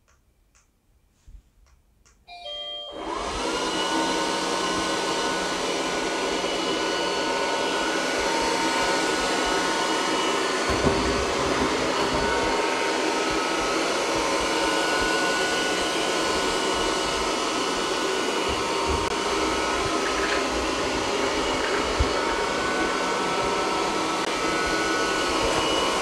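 Golongele robot vacuum starting its powerful spot-clean mode: a short beeping chime about two seconds in, then the suction motor spins up with a rising whine and settles into a steady hum and whine as the robot cleans the rug.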